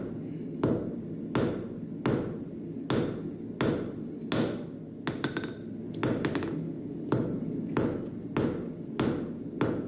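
Blacksmith's hand hammer striking hot steel on an anvil while forging a nail, in a steady rhythm of one to two blows a second, some as quick double blows. Several blows leave a short high ring from the anvil.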